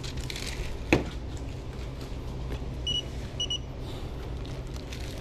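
Two short, high electronic beeps about half a second apart, over a steady low hum, with a sharp knock about a second in.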